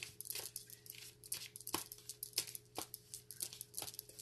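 A deck of tarot cards being shuffled by hand: a run of quick, irregular card snaps and flicks.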